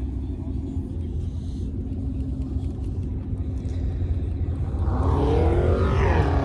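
Car engines rumbling low and steady; near the end one car's engine gets louder, its note sweeping down in pitch as it moves close by.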